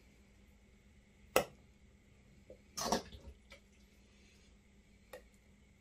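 Meat juices dripping from a metal sieve of freshly browned beef steak into a plastic bowl: a sharp tick about a second and a half in, a short burst of noise near three seconds, and a fainter tick near the end.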